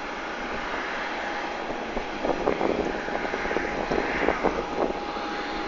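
Ryanair Boeing 737-800's CFM56 jet engines running on the ground, a steady hiss with a thin steady whine. From about two seconds in, irregular short knocks sit on top of it.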